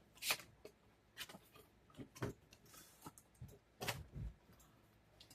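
Scattered light clicks, taps and brief rustles of doll packaging being opened and handled, about one every second.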